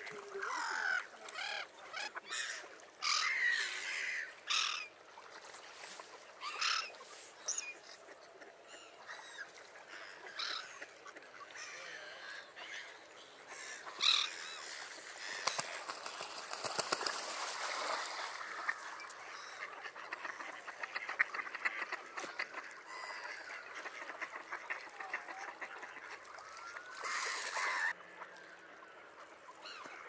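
A mixed flock of mallards, coots and gulls calling on open water, mostly duck quacks with many calls overlapping.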